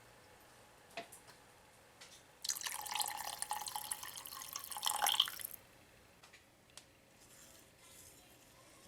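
Water running from a tap into a sink for about three seconds, then shut off, with a few light clicks before it.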